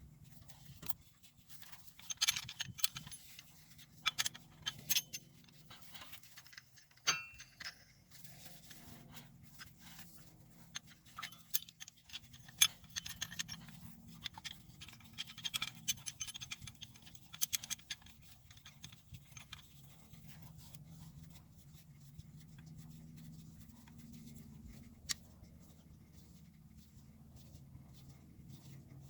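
Metal brake hardware and tools handled and fitted during a front brake job: irregular clinks, clicks and scrapes, busiest in the first two thirds, with one sharp clink about twelve seconds in, over a steady low hum.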